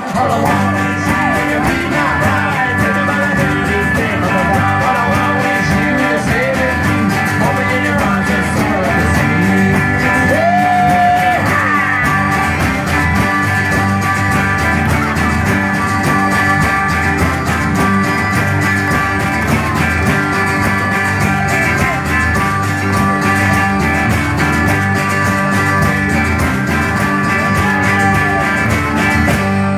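Live rock band playing: strummed acoustic guitar and electric guitar, with a harmonica played into a cupped microphone and singing at times, loud and steady throughout.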